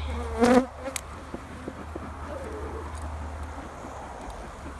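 Honeybees buzzing around an opened hive during the honey harvest, with a brief, much louder buzz about half a second in and a small click about a second in.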